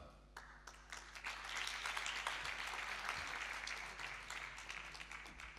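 Audience applauding, swelling after the first second or so and dying away near the end.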